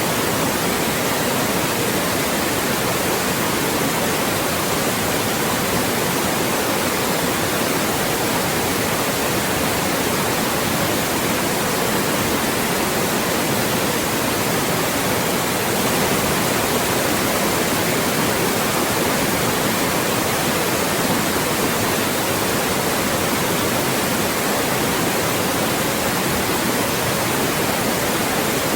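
Loud, steady electronically generated white noise: an even hiss across the whole range with nothing rising or falling, made for masking speech.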